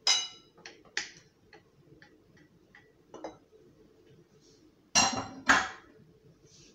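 Kitchen utensils tapping and knocking against a glass mixing bowl: a run of light clinks in the first few seconds, then two louder knocks about half a second apart near the end.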